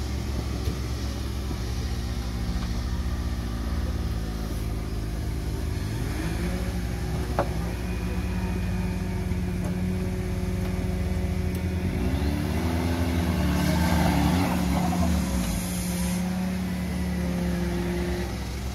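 Off-road vehicle's engine running steadily, its revs rising and falling a few times about two-thirds of the way through, with a single sharp click a little before the middle.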